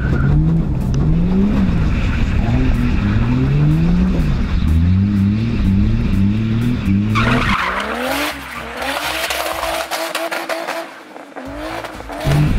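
Turbocharged BMW M50B25 straight-six revving up and down over and over while the car drifts, with tyre noise under it. About seven seconds in the deep engine note drops away and tyre squeal and screech take over, with the engine heard more thinly, until the low revving returns near the end.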